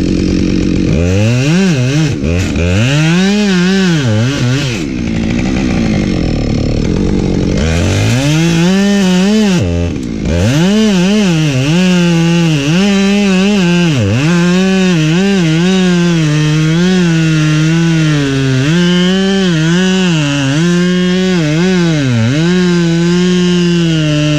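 Husqvarna 572XP two-stroke chainsaw cutting firewood at high revs. The engine note dips and climbs back over and over as the chain bites into the wood and frees up, then holds steadier in the second half.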